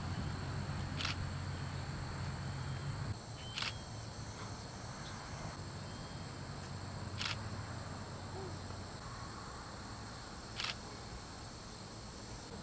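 A steady high-pitched insect chorus, crickets trilling outdoors, with four short sharp clicks a few seconds apart. A low rumble sits under it for the first three seconds, then drops away.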